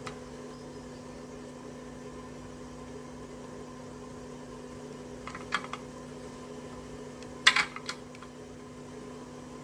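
Light clicks and rattles of e-bike wiring and plastic connectors being handled inside the frame, in two short clusters: one about five and a half seconds in and a louder one about two seconds later. A steady background hum runs underneath.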